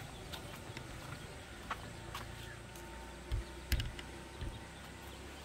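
Footsteps on a concrete path: a few dull thumps about three seconds in, with scattered light clicks over faint outdoor background.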